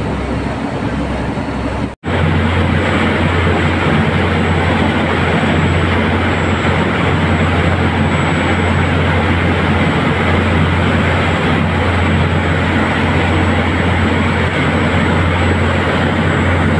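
Steady drone of a boat's engine mixed with rushing wind and water noise, heard from aboard the boat. The sound cuts out for an instant about two seconds in and then carries on, just as steady.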